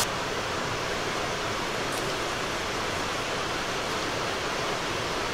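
A steady, even hiss with no individual sounds standing out.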